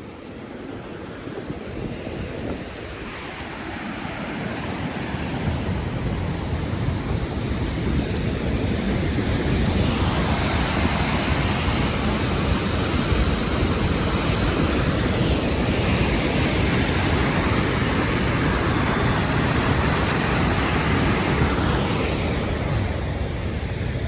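Rushing roar of a large waterfall, growing louder over the first ten seconds, then steady.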